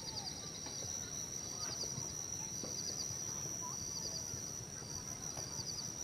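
Natural forest ambience: a steady high-pitched insect drone, with short clusters of quick chirps every second or so over a low rustling hiss.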